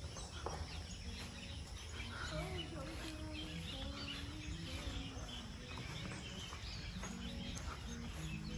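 Outdoor ambience of small birds chirping over a steady low rumble.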